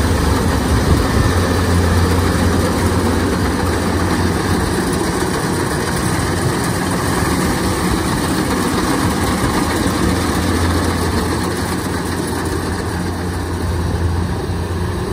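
Kubota DC-93 combine harvester's diesel engine running steadily under load as the header cuts and threshes standing rice, a continuous low hum with a dense mechanical clatter over it.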